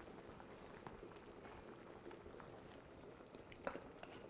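Faint bubbling of a pot of chicken pepper soup simmering, with a few light clicks about three and a half seconds in.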